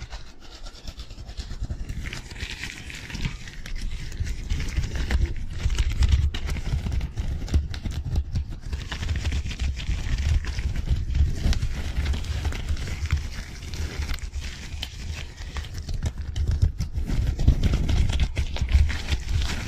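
Gloved hands rubbing and flicking rapidly right at a foam-covered microphone: a fast, continuous rustle of glove material over a steady run of low thumps as the hands brush the mic.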